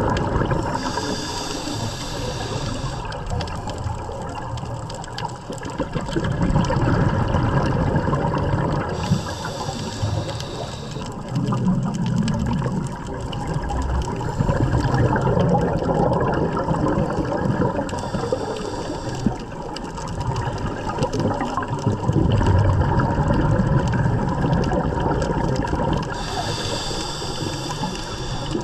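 Scuba diver breathing through a regulator underwater. A hissing inhale comes about every eight to nine seconds, four times, and between them a low rush of exhaled bubbles.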